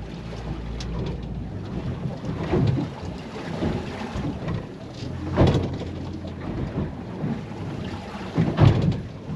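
Wind buffeting the microphone aboard a small fishing boat: an uneven rumbling noise that comes in gusts, with two stronger gusts about five and a half and eight and a half seconds in.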